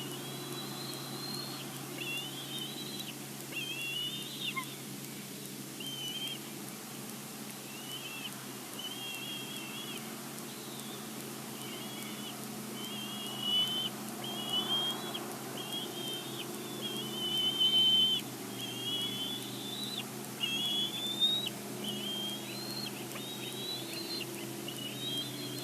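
Bald eagle calls at the nest: a long series of short, high whistled notes, about one a second, getting louder toward the end, over a steady low hum.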